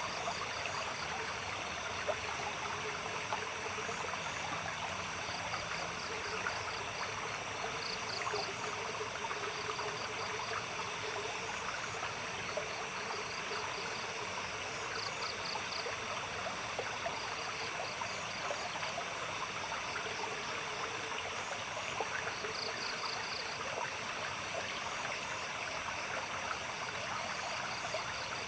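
Water trickling steadily, like a small stream, with night insects chirping in short rapid trills every few seconds over a steady high insect hum.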